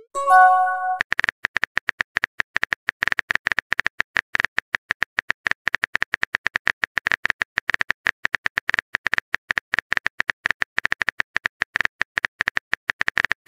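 Texting-app keyboard sound effect: rapid, irregular key clicks as a message is typed letter by letter. Near the start a short multi-note chime marks a message just sent.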